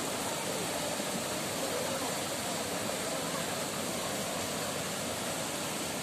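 Shallow water rushing steadily over a paved causeway across a forest stream.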